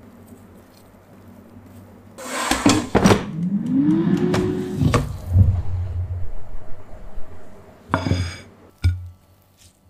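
Air fryer drawer clicking open and sliding out, with a rising squeal as it is pulled, followed by knocks. Near the end, a plate clatters down briefly with a ringing sound.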